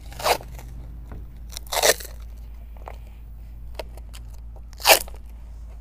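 Duct tape being pulled off its roll in three short rips while it is wound around the neck of a plastic soda bottle.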